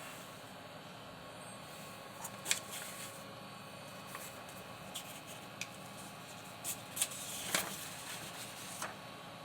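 Gembird FANCASE2/BALL ball-bearing PC case fan running with a faint, steady whir, with scattered rustles and light clicks of handling, the loudest about two and a half seconds in and again around seven seconds in.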